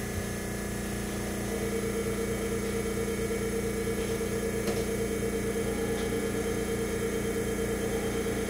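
Steady hum of a standing New Tram 200 series automated guideway train's onboard equipment, with an even low pulsing and a higher pulsing note that comes in about a second and a half in.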